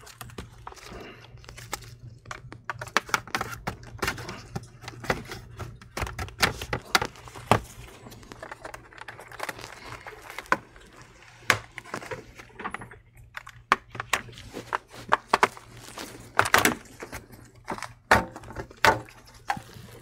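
Plastic retaining clips of a laptop's bottom cover clicking and snapping loose as a plastic pry tool is worked along the seam: a long run of irregular sharp clicks and cracks.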